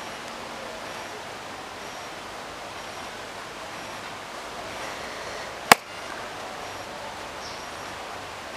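Steady outdoor background hiss, with a single sharp click a little past halfway.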